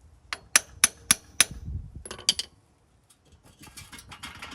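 Five quick hammer blows on steel, ringing, knocking the stub shaft back in as the worn-bearing front hub assembly is worked loose on a Ram 2500 4x4, followed by a couple of lighter metal clinks and some faint clattering.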